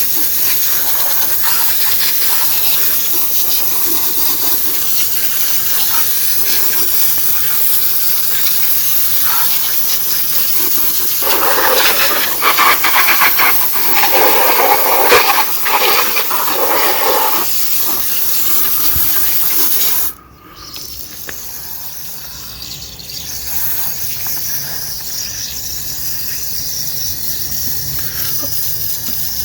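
Garden hose spraying water to rinse cleaner off a radio-control monster truck: a steady hiss, louder and splashier for several seconds in the middle as the jet strikes the truck. About two-thirds through the spray cuts back abruptly and goes on more quietly.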